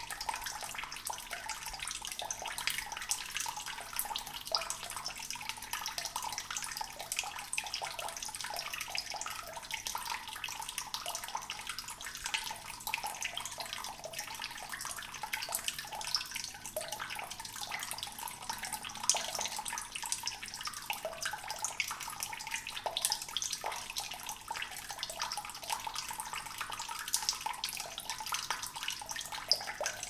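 Water gurgling and trickling steadily, full of small, irregular splashes and drips.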